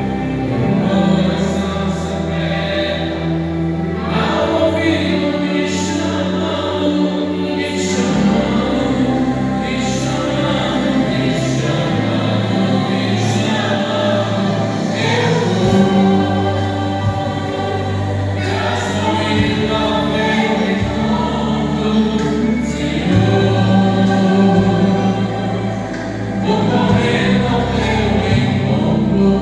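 Worship vocal group singing a gospel song together over accompaniment, with held low notes that change every few seconds.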